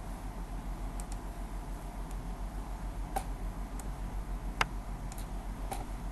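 A handful of sharp computer mouse clicks, including a quick double-click about a second in, over a steady low electrical hum.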